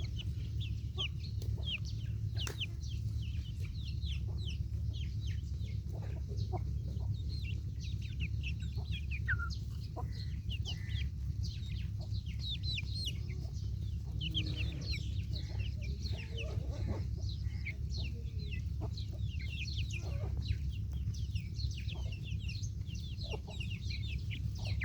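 A flock of baby chicks peeping without pause: a dense chorus of short, high cheeps, each sliding downward in pitch, over a steady low rumble.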